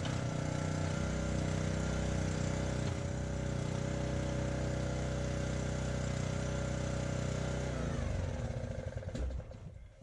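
Engine running steadily, then shut off about eight seconds in, its pitch falling as it winds down to a stop. A few faint knocks follow.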